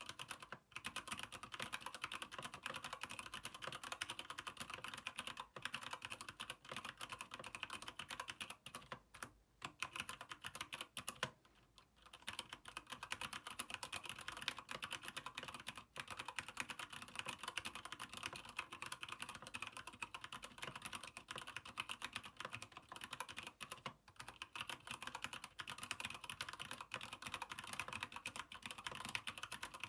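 Rapid, continuous typing on a Keychron K8 mechanical keyboard with Gateron Brown switches in an aluminium frame. There are two short pauses about a third of the way in.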